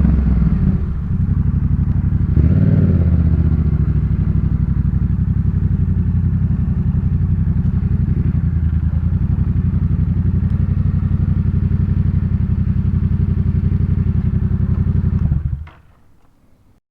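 Yamaha MT-07 689 cc parallel-twin engine through a Jeskap K4 full exhaust system. It drops back from a rev at the start and blips once briefly about two and a half seconds in. It then runs at a steady idle until it stops about fifteen seconds in.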